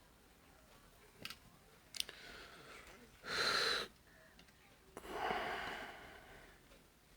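A few small handling clicks, then a short sharp breath or sniff close to the microphone a little past three seconds in, followed by a longer wheezy exhale that fades out.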